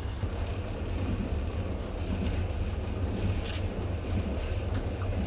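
Passenger train running, heard from inside the carriage: a steady low rumble and hiss with light rattling that comes and goes.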